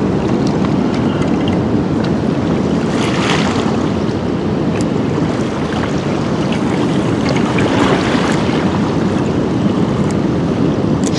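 Swollen, fast-flowing river water rushing steadily, with wind on the microphone.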